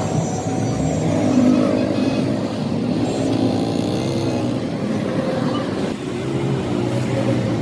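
A motor vehicle engine running, its pitch rising and falling a few times as it revs.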